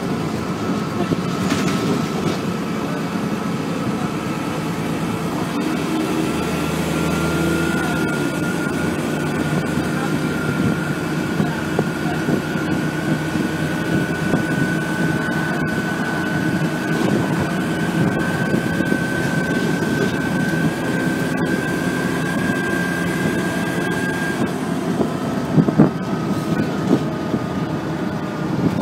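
ADL Trident ALX400 double-decker bus running under way, heard from inside the saloon: steady loud engine and drivetrain noise with a high whine that climbs slowly in pitch for most of the stretch, then drops away about four seconds before the end. A few light knocks and rattles come through.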